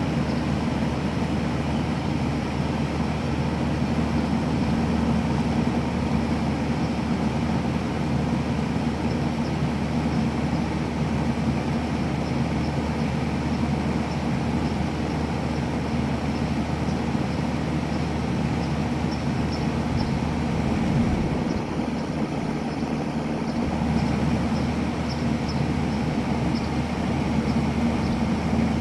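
A compressor running with a steady mechanical drone and low hum, which the owner takes for a bad compressor. About three-quarters of the way through, the lowest hum drops away for about two seconds.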